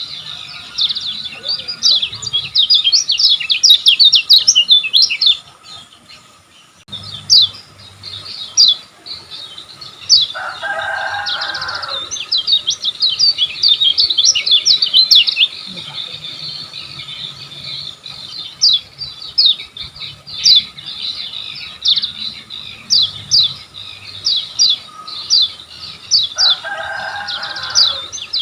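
Kecial kuning songbirds singing rapid, dense runs of high chirps, with a short lull about six seconds in. Twice, about ten seconds in and near the end, a lower, longer call cuts in over the chirping.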